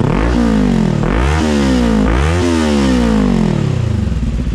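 Kawasaki Ninja 400's parallel-twin engine, breathing through a Yoshimura R-77 exhaust, blipped three times from idle. Each rev rises quickly and falls away more slowly, and it settles back to a steady idle near the end.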